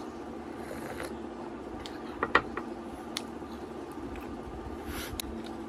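A few short, sharp clicks and clinks, the loudest a little over two seconds in, over a steady low hum.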